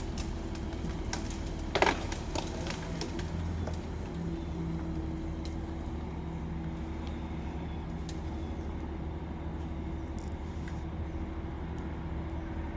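Crane's diesel engine running steadily at a distance, a low even hum that shifts slightly about three and a half seconds in. A short sharp knock about two seconds in.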